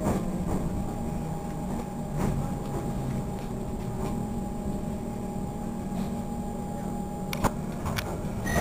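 Inside an EDI Comeng electric suburban train slowing into a station: steady rumble of the running gear with a thin steady whine that sets in about a second in and stops near the end, and a few sharp clicks, the loudest one near the end.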